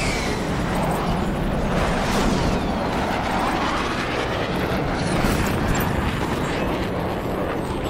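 Sci-fi sound effects for a hovering robot pod: mechanical whirring and clicking over a constant rumble, with a few sweeps falling in pitch.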